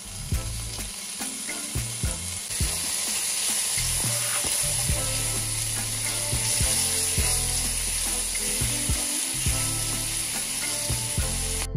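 Diced bacon sizzling as it fries in hot ghee in a nonstick pan, with a silicone spatula clicking and scraping against the pan as it is stirred. The sizzle grows louder about two and a half seconds in.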